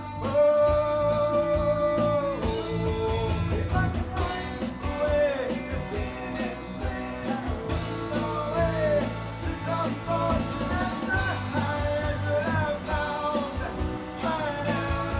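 Rock music: a band with electric guitar and a steady drum beat, and a voice singing long held notes.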